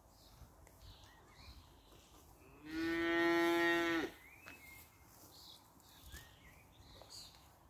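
A single moo from one of the cattle, held at a steady pitch for about a second and a half, starting about three seconds in.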